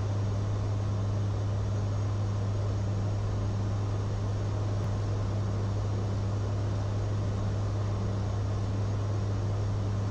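Aircraft engines and propellers droning steadily, heard from inside the cabin: a deep constant hum with a fainter, slowly pulsing tone above it and a hiss of airflow.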